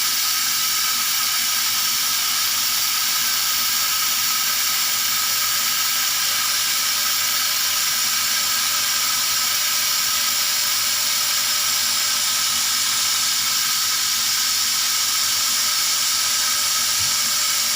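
Laser cutting machine running while it cuts an oval from 3 mm melamine plywood: a steady hiss with faint, even high tones that do not change.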